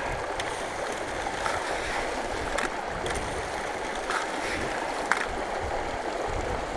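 Steady rush of a shallow stream, with a scattering of short clicks and rattles of gravel as a hand scoop digs into a bucket of river gravel and tips it onto a small drop-riffle sluice set in the water.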